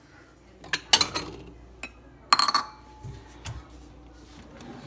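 Metal kitchen utensils clinking: a few sharp clinks, the loudest a little over two seconds in, ringing briefly.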